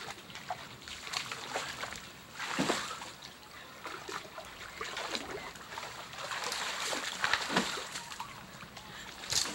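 Creek water splashing and sloshing irregularly as someone wades and drags branches through it, with several louder splashes.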